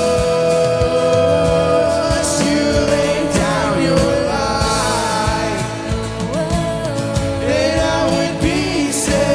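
Live Christian worship band playing a slow song: sung vocals over acoustic and electric guitars, bass, drums and keyboard.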